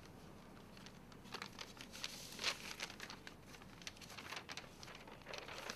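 Paper envelope and letter being handled, opened and unfolded: a faint run of crinkling and rustling, loudest about two and a half seconds in.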